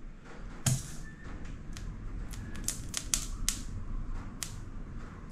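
Tyre-plug insertion tool being worked in a punctured motorcycle tyre: a sharp knock about a second in as the plug is pushed right through, then a string of irregular light clicks and taps.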